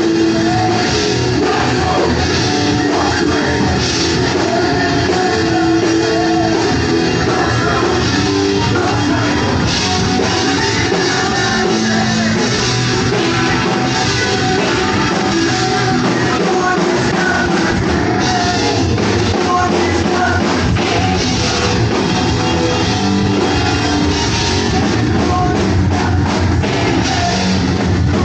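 Punk rock band playing live: electric guitars, bass guitar and drum kit, with sung vocals over the top.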